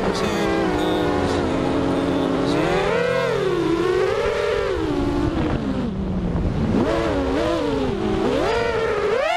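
Diatone Tyrant 215 racing quadcopter's brushless motors whining, their pitch rising and falling with the throttle. The pitch swells about three and four seconds in, drops to its lowest around six to seven seconds, then wavers up and down quickly near the end.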